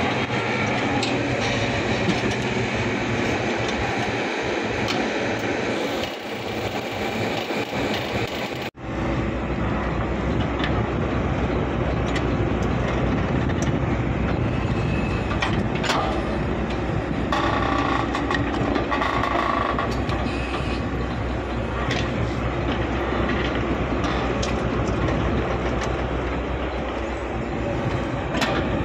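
Diesel engines of a tracked excavator and a farm tractor running steadily while the excavator loads red soil into a steel tractor trolley, with scattered knocks and clatter as bucket loads of earth drop in. About nine seconds in the sound changes abruptly to a steadier, deeper engine rumble.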